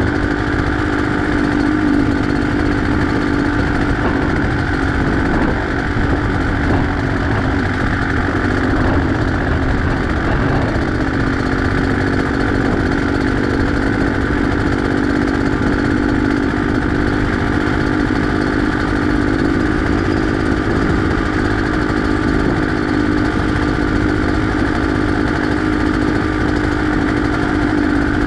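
Beta X-Trainer 250 two-stroke trail bike engine running at a steady pitch while riding, with wind noise on the microphone.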